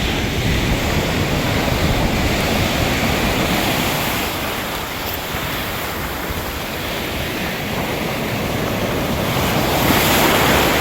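Sea waves washing on the shore in a continuous rushing noise, with one wave surging louder near the end; wind rumbles on the microphone.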